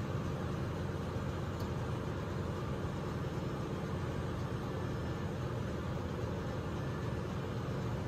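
Steady drone of ship's engine-room machinery, a low rumble with a wash of noise above it.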